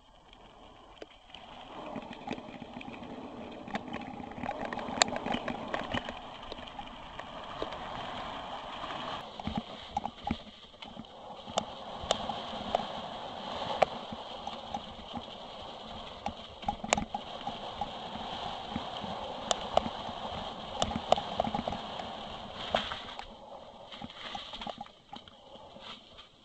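Mountain bike riding over a gravel track and through dry fallen leaves, heard from a camera mounted on the bike: steady tyre noise with the bike rattling and knocking sharply over bumps. It comes in about two seconds in and fades near the end.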